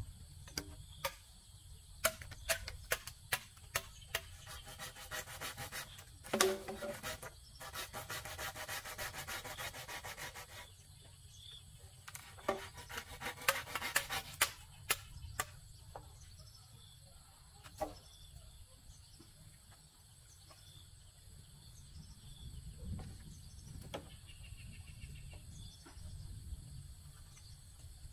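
Wood being worked by hand: two runs of rapid scraping or cutting strokes, one about six seconds in lasting some four seconds and a shorter one about twelve seconds in, with scattered sharp knocks between.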